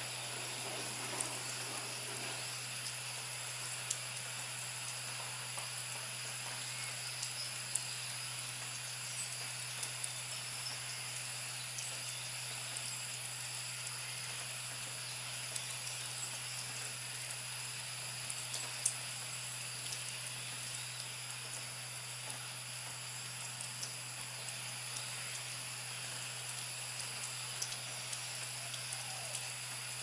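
Steady rain falling, an even hiss with scattered sharp ticks of individual drops.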